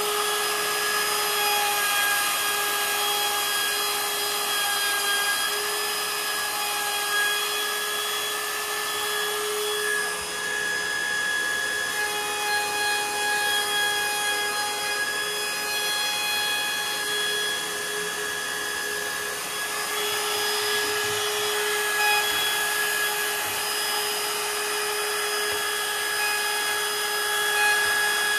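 Cordless Milwaukee plunge router running steadily at speed, its cutter routing out a hinge recess in the edge of a wooden door through a hinge jig template, with a steady motor whine over the hiss of the cut.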